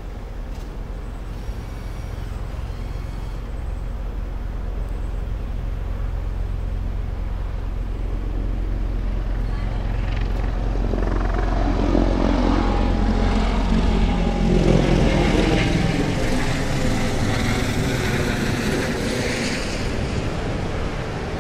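Engine noise of a passing vehicle: a low rumble that grows slowly louder for about fifteen seconds, gains a rushing hiss about halfway through, and then starts to fade.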